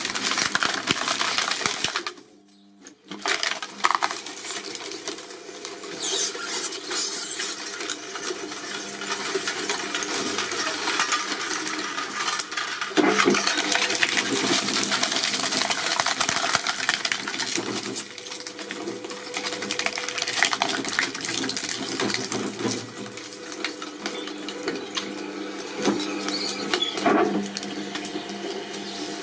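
Shredding machine running and crunching material, a dense crackle of many small clicks and snaps over a steady machine hum. The sound drops out briefly about two seconds in, then resumes.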